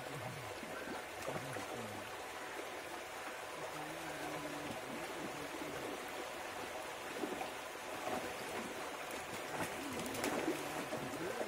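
Running water, with low voices talking now and then in the background.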